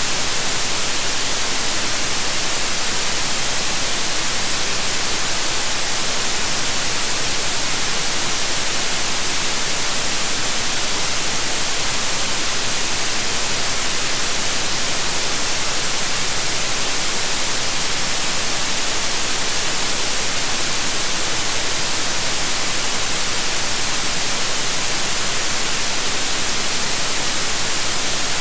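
Steady, unchanging white noise: an even hiss without any tone or rhythm, strongest in the highs.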